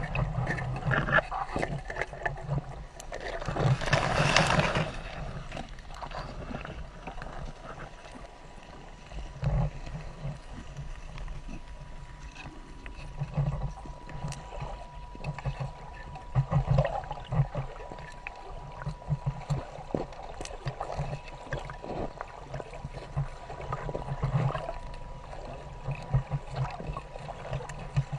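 Water rushing and sloshing aboard a trawling boat, with irregular knocks and low thuds and a louder rush of water about four seconds in.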